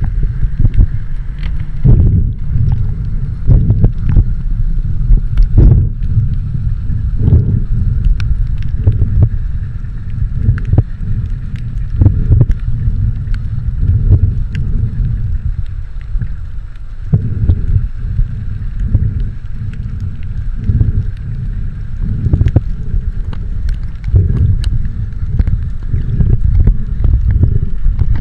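Loud, continuous low water rumble buffeting the microphone, with irregular thuds and a faint steady hum above it.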